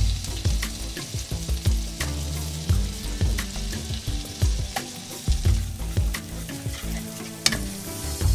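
Oil sizzling in a nonstick frying pan with green chili and freshly grated ginger frying in it, with scattered sharp crackles; a spatula stirs the pan near the end.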